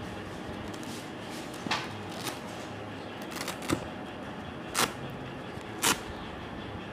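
Rustling of a heavy camouflage winter jacket's fabric as it is lifted and unfolded by hand, with a handful of short, sharper rustles over a steady background hiss.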